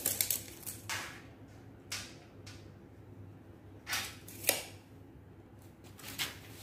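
Scattered short scrapes and taps of hand tools on a thin aluminium ceiling panel as a pencil marks it and a spirit level is handled, with a sharper tap about four and a half seconds in.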